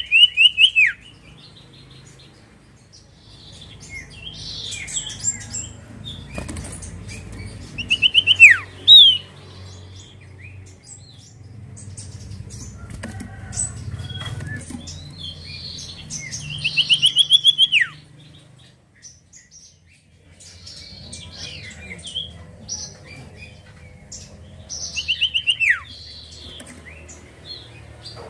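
Common iora (cipoh) singing: a loud phrase of quick repeated notes that ends in a falling slur, given about four times at roughly eight-second intervals, with softer chirps in between.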